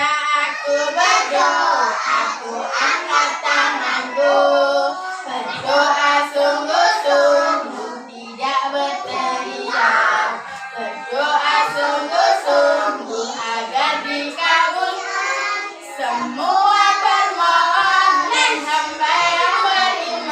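Young children singing a song together in a group.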